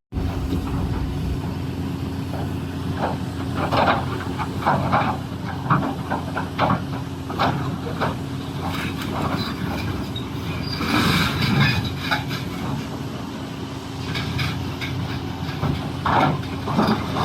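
Doosan DX390 excavator's diesel engine running with a steady drone, under many short clunks and scrapes of rock against the steel bucket, with a longer rattle of rock about eleven seconds in.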